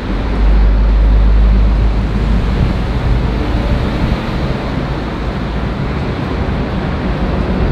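Street traffic running steadily, with a deep low rumble that is strongest in the first couple of seconds.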